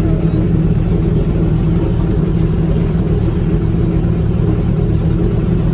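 Airboat engine and propeller running steadily, a constant unbroken drone with no revving.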